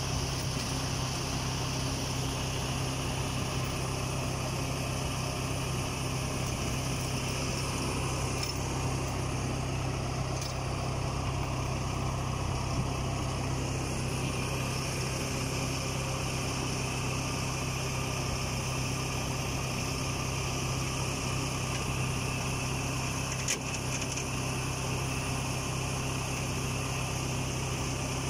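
Diesel engine of a farm machine idling steadily with a constant low hum, unchanging throughout.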